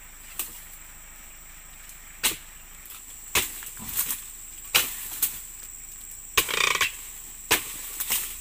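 Steel dodos chisel on a long ironwood pole being thrust into oil palm frond bases during pruning: about nine sharp chopping strikes at uneven intervals, with a longer rustling crunch around six and a half seconds in.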